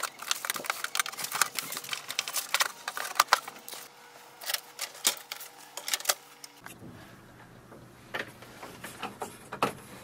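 Handling noise from unpacking a printer: dense crackling and clicking of cardboard and packing in the first few seconds, then sparser clicks and knocks of plastic parts.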